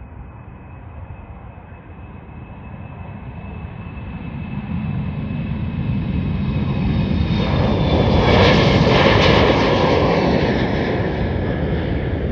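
Embraer E175's twin turbofan jet engines at takeoff power, growing steadily louder to a peak about two-thirds of the way in, then easing slightly. A high whine runs over the deep engine noise and drops in pitch as the noise peaks.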